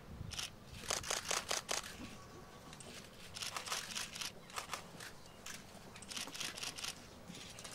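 DSLR camera shutters firing in quick bursts, several clicks in a row, in clusters about a second in, around three to four seconds in, and again near the end.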